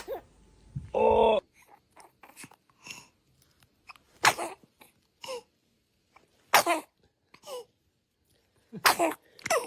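Newborn baby sneezing: three short, sharp sneezes about two seconds apart, with softer small breathy sounds between them and a brief voiced sound about a second in.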